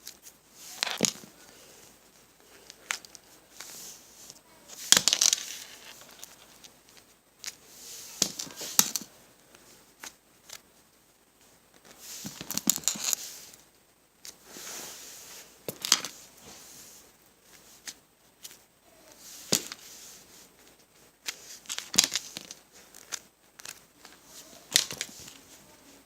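Squishy toys being handled and set down one after another: irregular rustles, crinkles and soft taps, one every second or two.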